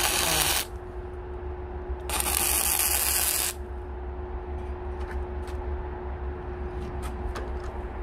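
Grinder grinding the edge of a thick steel axe blade: a harsh grinding hiss that stops about half a second in, then a second burst of about a second and a half, with the grinder's motor humming steadily in between.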